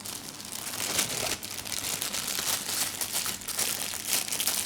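Packaging crinkling and rustling in the hands, a camera lens being unwrapped from its box.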